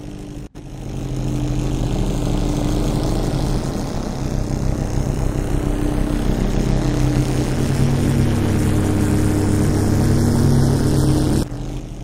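Synthesized sci-fi car engine sound from looped engine samples with flanger-chorus (Krotos Igniter's 'Gritty Future Banger' preset), panning slowly with a Doppler effect. A steady multi-tone hum creeps up in pitch with the RPM while a thin high whine rises steadily above it. It starts just under a second in and stops abruptly near the end.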